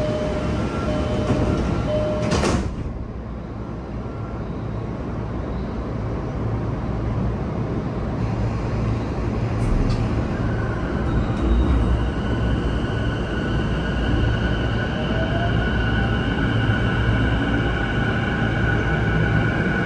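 Running noise inside a JR E233-7000 series electric train: steady wheel-on-rail rumble that drops sharply about two and a half seconds in. About halfway through, the whine of its Mitsubishi IGBT-VVVF inverter and traction motors comes in and climbs slightly in pitch.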